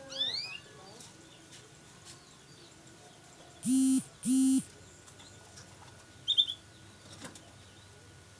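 Cage birds giving a few short chirps: a quick run of rising chirps at the start and a brief high chirp later. Near the middle, two loud flat-pitched honks, each under half a second, stand out above the birds.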